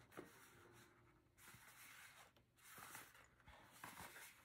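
Faint rustling and scraping as a cardboard perfume carton and its paper wrapping are handled, in a few soft rustles.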